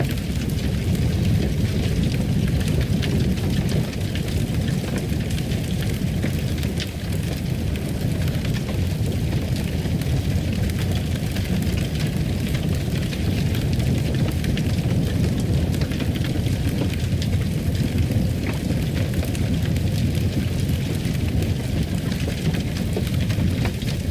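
Fireplace fire crackling: scattered small pops and snaps over a steady low rush.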